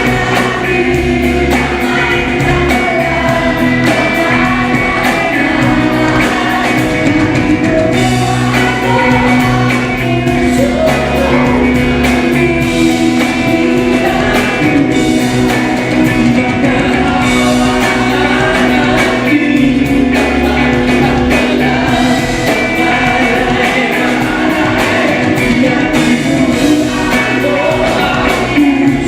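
Live band music with a voice singing a melody over it, loud and continuous, from a pop-rock medley performed in concert.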